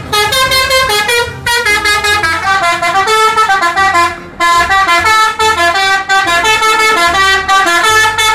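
Musical multi-tone bus horn (Indonesian 'telolet' horn) playing a quick tune of stepping notes, in several phrases with short breaks between them.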